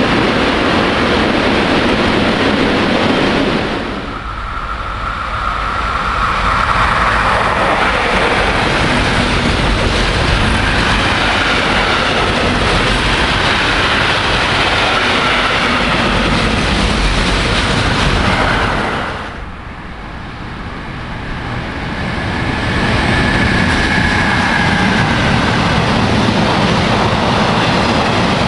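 Loud, steady vehicle running noise, dipping briefly twice, with a faint high whine after each dip.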